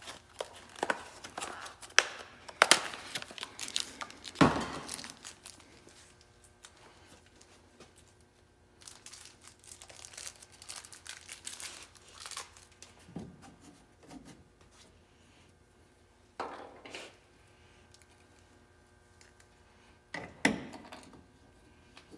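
Crinkling and tearing of a plastic parts bag with scattered clicks of small hardware being handled, busiest in the first few seconds; a sharp knock near the end.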